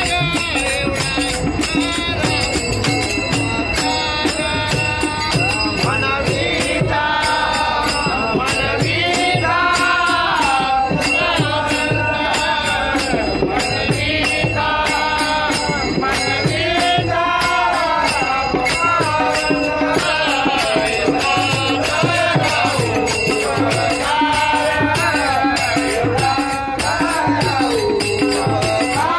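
Men singing a devotional bhajan together to a fast, steady beat of clashing small brass hand cymbals (taal), which ring continuously, with a two-headed hand drum.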